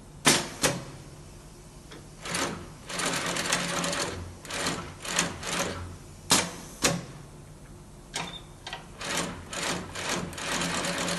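Industrial sewing machine stitching in short runs of half a second to two seconds, stopping and starting, with sharp loud clicks between runs: a pair near the start and another pair about six seconds in.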